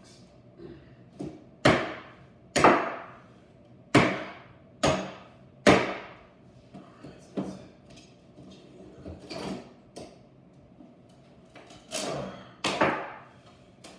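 Hammer striking the wooden slats of a shipping crate: about ten irregular blows, each a sharp knock with a short ring, the heaviest in a run a couple of seconds in and two more near the end.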